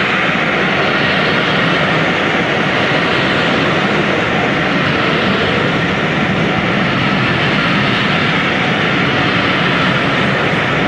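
Train passing at speed: a steady, loud rolling roar of wheels and carriages on the rails, with no distinct exhaust beats.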